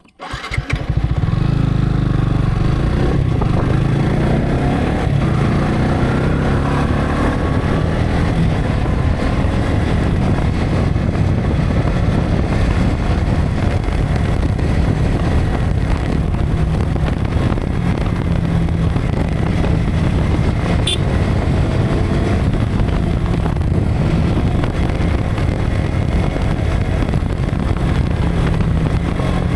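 Yamaha R15 V3 motorcycle's single-cylinder engine running under heavy wind noise buffeting the camera's built-in microphone. The engine pitch rises as the bike accelerates a few seconds in and again later.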